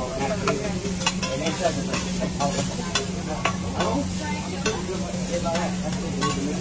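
Steak and vegetables sizzling on a hot steel teppanyaki griddle while a metal spatula scrapes and clicks across the steel in quick, uneven strokes. A steady low hum runs underneath.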